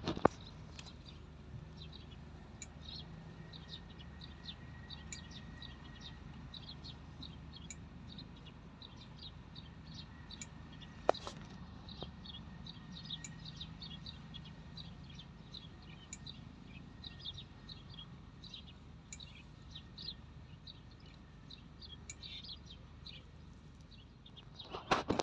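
Small birds chirping steadily over a low background hum, with one sharp click about eleven seconds in.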